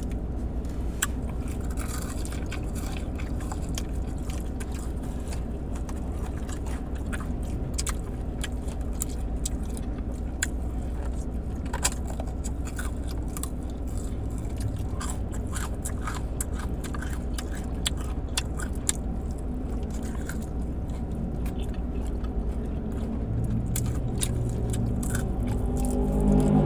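Close-up eating sounds of fried chicken wings being bitten and chewed, with many short crunches and mouth clicks scattered throughout over a steady low hum.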